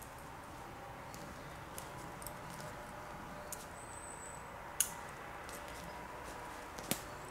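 Quiet handling sounds of a tarp shelter being stretched out and anchored: scattered light clicks and rustles over a faint steady background, with a sharper knock about five seconds in and another near the end.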